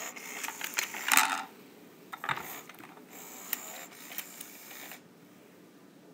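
Motorised talking Thomas the Tank Engine toy's small electric motor and plastic gears clicking and whirring, with a few sharper knocks mixed in. It goes quiet about five seconds in.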